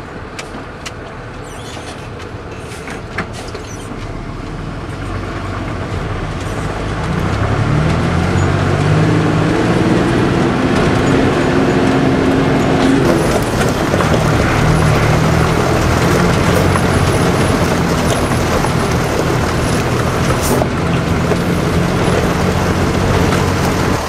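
A propane bobtail tanker truck's engine running as it drives along a gravel road, heard from inside the cab, with steady tyre and road noise. The engine note builds and gets louder over the first several seconds, then holds steady.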